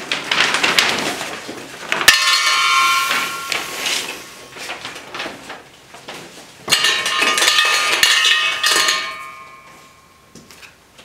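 Draw lots going into a metal trophy cup and being stirred in it: rustling at first, then a sharp metallic clang about two seconds in that rings on. Lighter clinks and rattling follow, and a second stretch of ringing clatter comes around seven seconds in.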